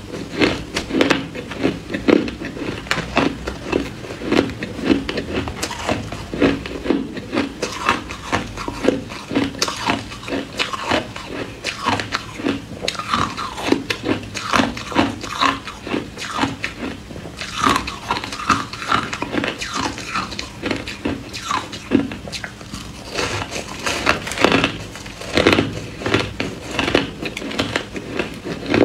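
Ice being bitten and chewed close to the microphone: a dense, continuous run of sharp crunches.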